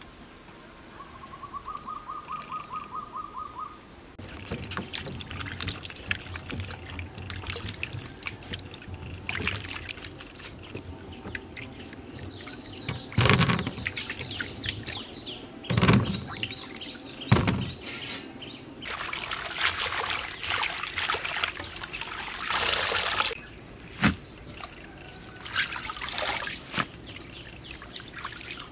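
Vegetables being rinsed in water, with irregular splashing and trickling and a few dull knocks around the middle. A bird gives a quick trill in the first few seconds.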